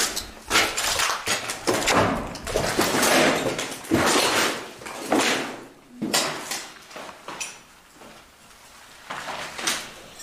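Scraping and shuffling noises of people moving through a doorway: a run of rough noises for about six seconds, then quieter, with a few more near the end.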